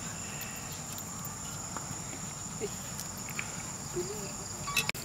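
Steady high-pitched chirring of crickets or similar insects, with faint scattered clicks and a few faint distant voices; a sharp click and a momentary drop-out come near the end.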